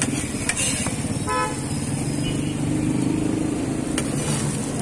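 Steady rumble of street traffic, with a short car-horn toot about a second in. Two sharp knocks, one near the start and one near the end.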